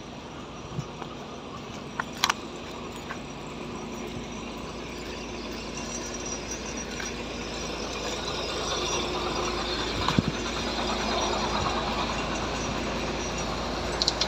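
A vehicle engine running steadily, growing louder over the stretch, with a few sharp clicks over it.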